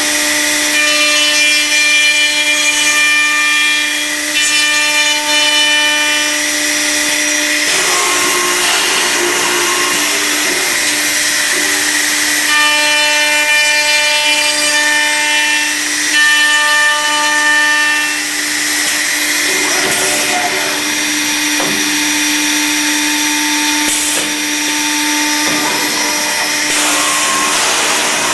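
Accu-Systems CNC door machine's spindle running and cutting wood for a cup hinge recess. A steady hum runs throughout, with two spells of a higher whine during the cuts: one starting about a second in and one around halfway.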